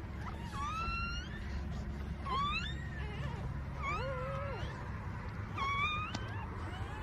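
Newborn puppy crying: four high-pitched squealing whines, each rising in pitch, about a second and a half apart, over a steady low hum.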